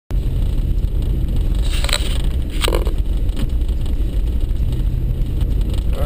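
Steady low rumble of a four-wheel-drive vehicle's engine and tyres on a snow-packed road, heard from inside the cab. There are two short knocks about two and three seconds in.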